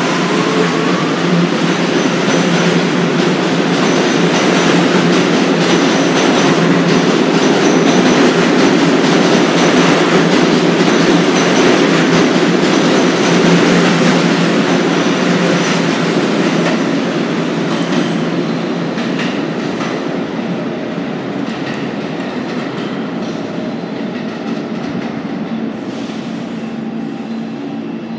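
R211A subway train pulling out of an underground station platform and running away into the tunnel: its noise builds over the first dozen seconds, then slowly fades as it leaves.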